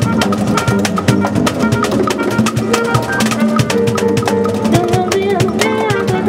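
Live Latin jazz combo playing an instrumental passage: a trumpet phrase over upright bass, piano and a busy drum kit, with sharp clicking percussion strokes throughout and a held note that bends near the end.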